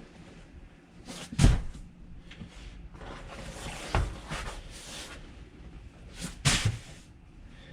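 Knocks and bumps as pieces are handled and pulled out of an RV's interior: three sharp knocks, about a second and a half, four and six and a half seconds in, with faint rustling between them.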